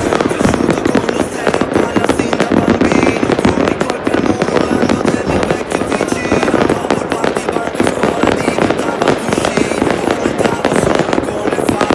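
Many fireworks and firecrackers going off at once: a dense, unbroken crackle of bangs with no pause.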